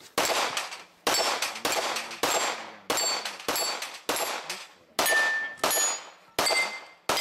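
Pistol-caliber carbine firing about a dozen shots at a steady pace, roughly one every half second to one second. Many shots are followed by the ringing clang of a steel target being hit.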